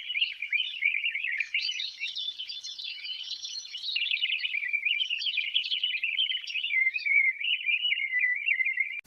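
Many small birds chirping and twittering together in a dense, continuous chatter that cuts off suddenly.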